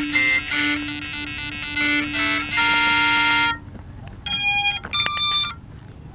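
A quadcopter's brushless motors sound the BLHeli_32 ESC startup beeps: a quick tune of stepped beeps at changing pitches, then after a short pause two separate beeps. These tones come from the ESC when the drone is powered up, before it is armed.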